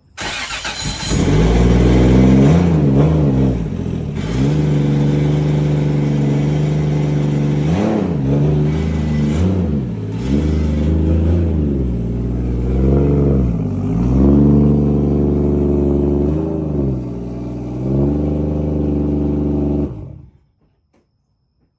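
Toyota 1JZ VVT-i turbocharged inline-six in a JZX100 Chaser running, its revs blipped up and dropping back several times over a steady running note. The sound cuts off suddenly near the end.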